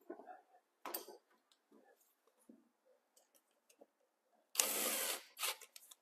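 Gloved hands forcing a wired GFCI receptacle and stiff solid 12-gauge wires into a wall box: a few faint clicks and rubs, then a louder half-second scraping rustle near the end and a shorter one just after.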